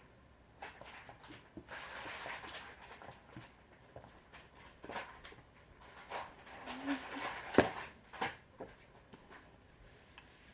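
Eating and table-handling sounds: scattered mouth noises and rustling with light clicks of dishes or utensils, one sharp click standing out a little past seven and a half seconds in.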